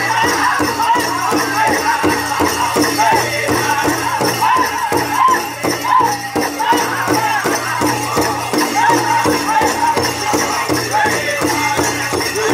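Powwow drum group beating a large shared drum in a steady even beat, a little over two strokes a second, while singing high, sliding vocals together. A steady jingling rattle, likely from the dancers' bells, runs underneath.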